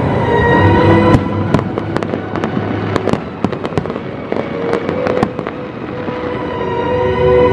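Aerial fireworks bursting: an irregular string of sharp bangs and pops, over music with held notes.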